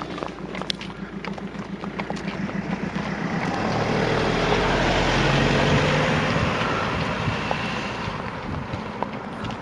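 A van drives past close by on the road, its engine and tyre noise swelling to a peak and then fading away, with wind on the microphone. At first, ponies' hooves clip-clop on the tarmac.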